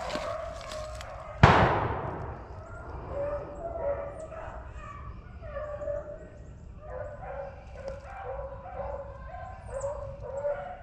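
A pack of beagles baying on a rabbit's trail, their bawls overlapping throughout. About a second and a half in, a single loud shotgun shot goes off and rings out briefly.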